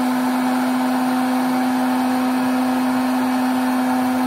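Hot-air popcorn maker running, its fan motor blowing hot air with a steady, unchanging hum over a rushing of air, puffing dried snack pellets without oil.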